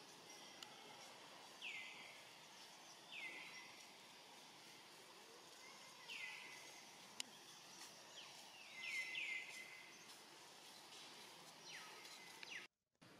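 Faint outdoor background with short, high chirping calls that drop quickly in pitch, about every one to three seconds and several in a row near the middle. The sound cuts out completely for a moment near the end.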